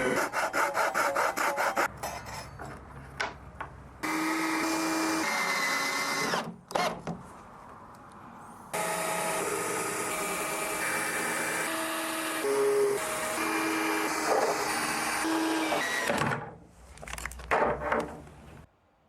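Power tools working wood in a series of short, abruptly cut segments: motors running steadily at several different pitches, with a fast run of clicks in the first two seconds.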